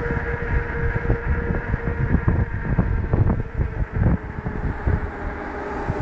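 Wind buffeting the microphone on an e-bike riding at about 35 km/h, in uneven gusts strongest in the middle, over a steady faint whine from the bike that fades near the end.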